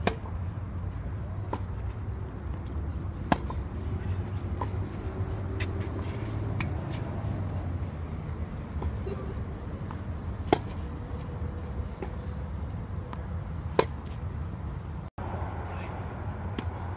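Tennis racket striking the ball in a rally: sharp pocks a few seconds apart, four of them loud, with fainter hits and bounces between, over a steady low background hum.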